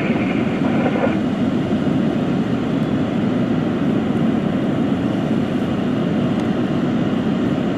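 Fire engines' diesel engines running with a steady low rumble.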